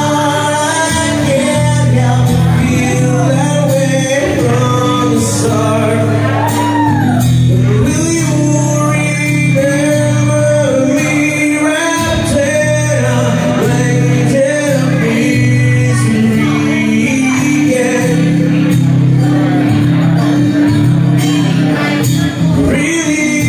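A man singing into a microphone while accompanying himself on acoustic guitar: a live solo acoustic song, the voice gliding and sustaining notes over steady guitar chords.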